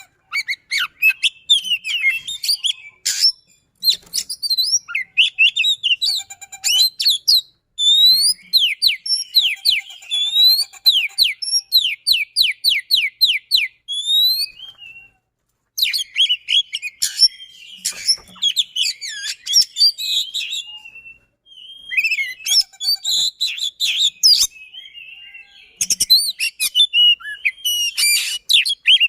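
Oriental magpie-robin (kacer) singing a fast, dense song of varied chirps and whistles, with a run of quick rising whistled notes in the middle, broken by a couple of short pauses.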